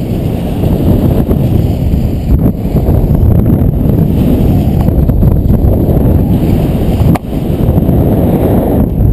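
Airflow buffeting an action camera's microphone in paraglider flight: a loud, steady low rumble of wind noise. A sharp click with a brief dropout comes about seven seconds in.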